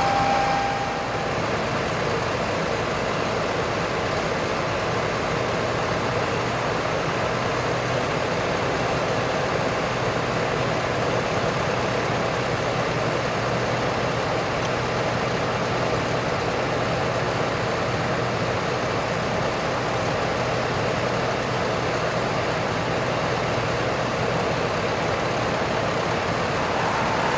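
Utility work truck's engine running steadily, an even rumbling noise with a faint low hum.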